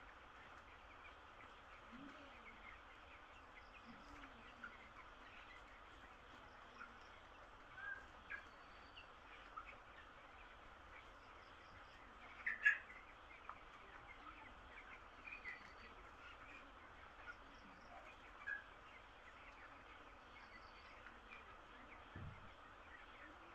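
A flock of broiler chicks peeping: a faint, steady chatter with many short, high cheeps scattered through it, a louder cluster of cheeps about halfway through.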